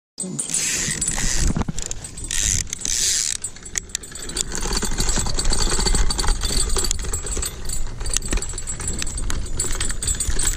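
Light metallic jingling and rattling, many quick clicks over a steady low rumble of movement and handling, with a bright hiss in the first few seconds.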